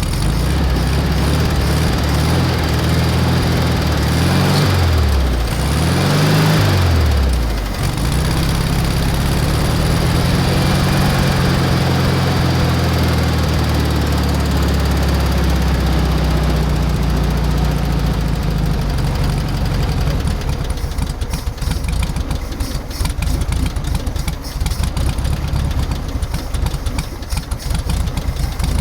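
1973 VW Super Beetle's air-cooled 1600 flat-four engine running on its rebuilt carburetor. It is revved up and down twice in the first several seconds, then settles to a steady fast idle. From about twenty seconds in it runs rough and uneven.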